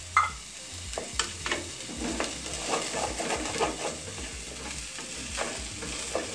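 Diced potatoes and onion sizzling in oil in a stainless steel pot while a wooden spoon stirs and scrapes through them, with scattered clicks of the spoon against the pot.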